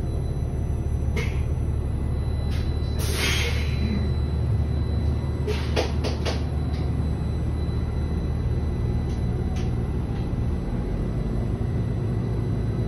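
Cabin sound of a New Flyer XDE40 diesel-electric hybrid bus: a steady low engine hum, with scattered clicks and rattles and a short burst of air hiss about three seconds in.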